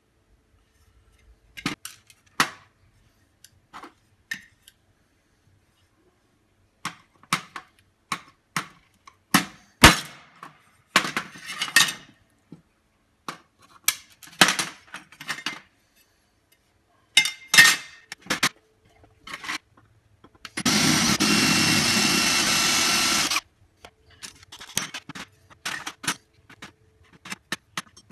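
Scattered hammer blows and metal clinks on aluminium extrusion and a steel tray as a stubborn rivet is knocked out. About two-thirds of the way through, a cordless drill runs steadily for about three seconds, then the hammer knocks resume.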